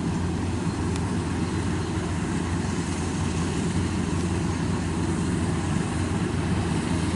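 Kubota DC-93 combine harvester's diesel engine running steadily as the machine harvests rice, a constant low hum with a noisy mechanical wash above it.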